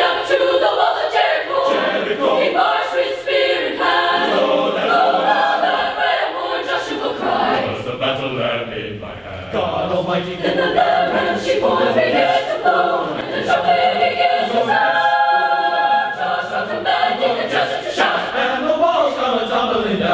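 Mixed-voice choir singing in full harmony, with a long held chord about fifteen seconds in.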